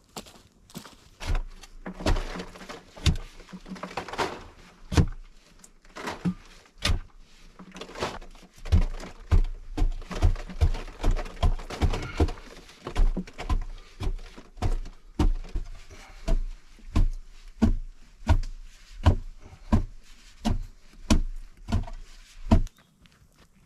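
A long series of dull, heavy thuds, as from repeated blows of a tool: uneven knocks with rustling at first, then a steady beat of about one and a half blows a second that stops suddenly near the end.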